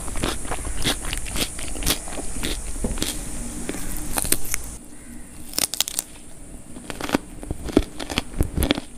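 Close-miked eating sounds: fingers squishing mutton biryani rice and meat together on a steel plate, then mouthfuls being chewed. Dense sharp clicks for the first half, sparser and quieter clicks from about five seconds in.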